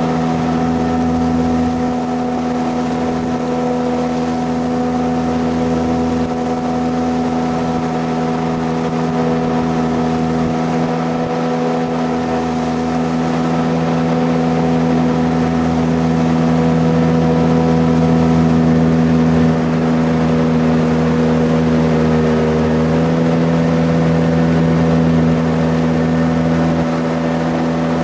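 Jet boat engine running steadily at cruising speed under way upriver, with water and wind rushing. The engine's tone shifts slightly about two-thirds of the way through.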